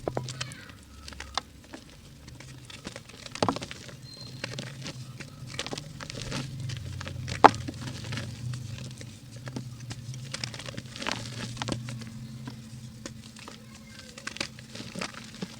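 Pink ASMR mud being crumbled: irregular crackles and soft patter of breaking pieces, with a sharper snap about seven seconds in.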